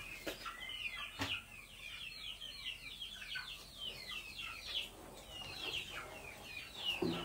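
Chicks peeping: a steady run of high, short falling chirps, several a second, with a couple of light clicks about a second in.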